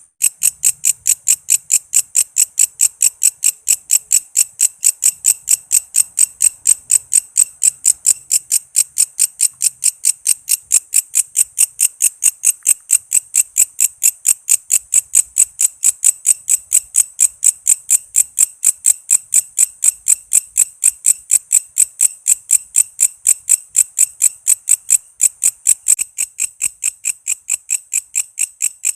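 Walang kece insect chirping in a steady, fast rhythm of short, high-pitched pulses, about three a second, dropping slightly in level near the end.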